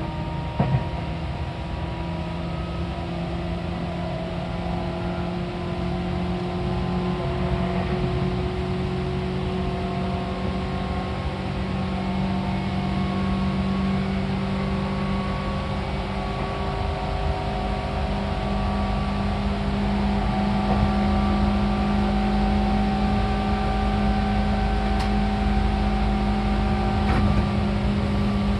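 Seibu 4000 series electric train running, heard from inside the car: a steady rumble under a motor and gear whine that slowly rises in pitch as the train gains speed, with a sharp knock about a second in.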